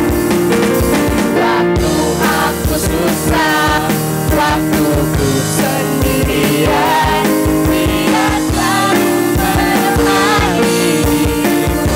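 Sunday school worship song: voices singing a melody over band accompaniment with a steady drum beat.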